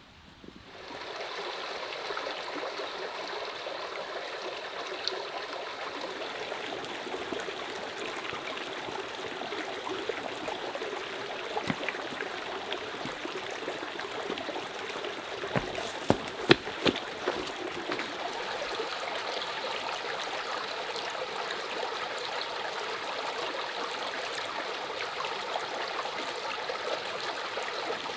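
Shallow rocky forest stream babbling steadily; it fades in about a second in. A few sharp knocks about halfway through stand out above the water.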